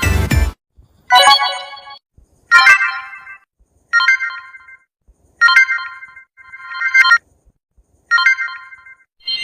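Samsung phone notification tones played one after another: six short, bright chimes of a few notes each, roughly one every second or so, each fading quickly into silence. At the very start a buzzier, denser tone cuts off about half a second in.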